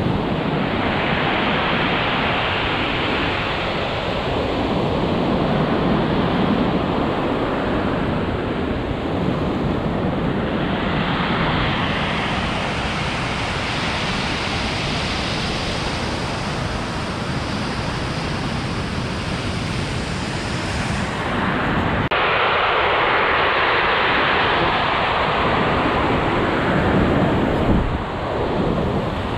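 Ocean surf breaking and washing up a pebble beach, the wash swelling and easing continuously, with wind on the microphone. The surf sound shifts abruptly about two-thirds of the way through.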